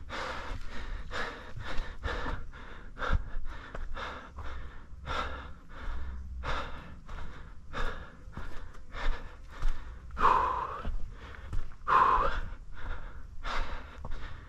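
A trail runner's heavy, rapid breathing from hard exertion, about three breaths every two seconds, with two louder voiced gasps in the later part.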